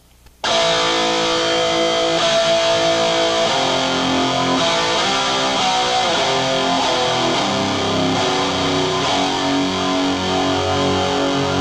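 Distorted electric guitar playing a series of ringing chords, starting about half a second in. Partway through, an MXR pitch transposer is switched on, which sets a slightly detuned copy of the guitar against the dry signal: a doubling effect with a strange, eerie sound.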